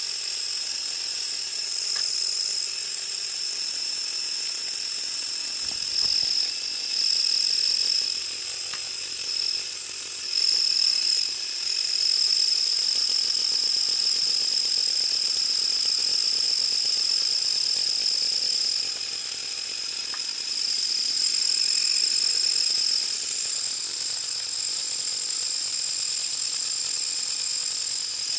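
Small electric motors of a motorized Lego Technic material handler running, a steady high-pitched whine that swells and eases several times as the machine works.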